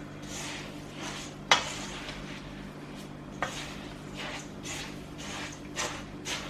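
Wooden spoon tossing a dry mix of puffed rice cereal, icing sugar, cocoa powder and desiccated coconut in a mixing bowl: rustling swishes about twice a second, with two sharp knocks of the spoon against the bowl.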